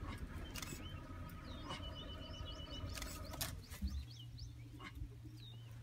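Scattered short bird chirps over a low steady hum, with a thin steady tone held for about a second and a half in the middle.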